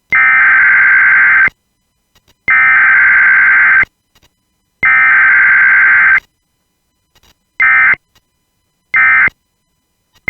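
Emergency Alert System SAME data bursts: three raspy bursts of rapidly switching digital tones, each about a second and a half long with a second's gap between them, then shorter bursts of the same tones near the end, the pattern of the end-of-message code.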